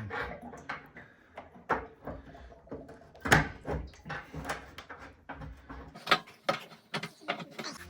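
Irregular metallic clicks and knocks of a spanner and fittings being worked on a radiator valve as it is fitted and tightened, loudest about three seconds in and again about six seconds in.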